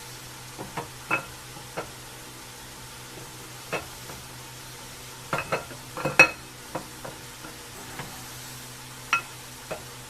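Scattered metallic clinks and knocks, each with a short ring, as the stock camshaft of a 5.3-litre LS V8 is worked out through the cam bearings; the loudest comes a little past the middle.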